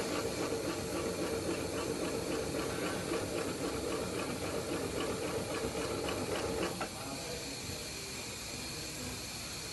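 Industrial post-bed sewing machine stitching a leather shoe upper, its needle running in a rapid, even rhythm. It stops abruptly about two-thirds of the way through, leaving a steady hiss.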